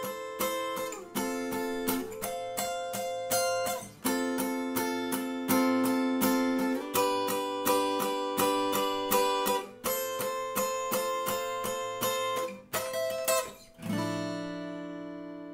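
Acoustic guitar with a cutaway body playing a rhythmic accompaniment pattern, plucked notes over chords that change every second or two. About 14 seconds in it settles on a final chord that rings out and slowly fades.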